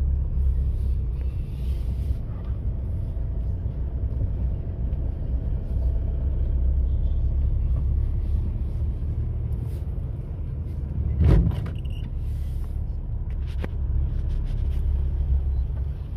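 Heavy road vehicle's engine running with a steady low rumble. Short hisses come near the start and about twelve seconds in, and a sharp knock about eleven seconds in is the loudest moment.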